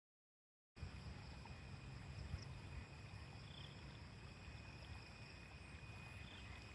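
Faint outdoor ambience after a brief dead silence: a low wind rumble on the microphone with a thin, steady high insect drone above it.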